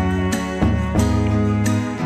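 Background music with held notes and a regular beat.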